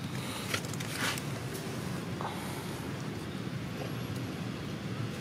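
Steady low rumble of distant road traffic, with a couple of brief crackles about half a second and a second in.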